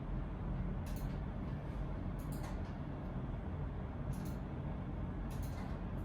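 Steady low background rumble with short, faint clicks, often in pairs, every second or so.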